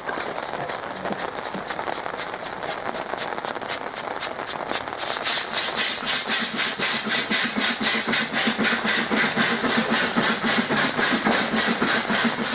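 Double-headed LMS steam locomotives, Jubilee 45690 Leander and 8F 48151, pulling away with a train: a fast, even rhythm of exhaust beats that grows louder about five seconds in, over the hiss of steam from open cylinder drain cocks.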